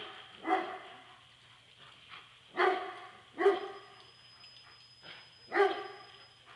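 A dog barking: four loud, short barks at uneven gaps of one to two seconds, with a couple of fainter barks between, over a steady low hum.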